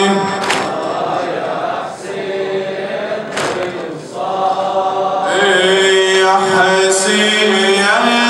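A man chanting an Arabic Muharram lament (noha) unaccompanied into a microphone, holding long, drawn-out notes. He breaks off about two seconds in and comes back in, louder and higher, about five seconds in.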